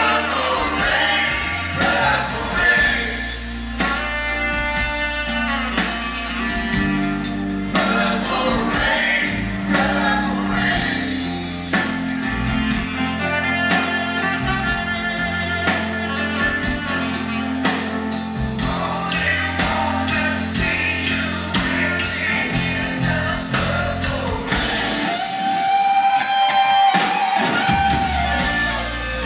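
Live rock band playing with a singer over drums, guitars and keyboards. Near the end the bass drops out for a couple of seconds under a long held note.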